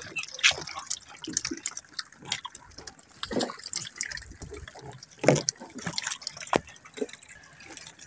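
Small irregular splashes and drips of sea water around a wooden outrigger canoe as hooked fish on a handline thrash at the surface, with scattered sharp knocks. The louder splashes come about half a second in and just after five seconds.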